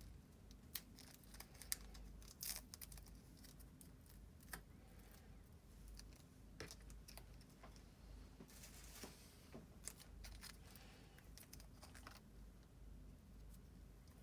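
Faint handling sounds of a small plastic mustard sachet being torn open and squeezed, with scattered light clicks and a short crinkly rustle a little past the middle.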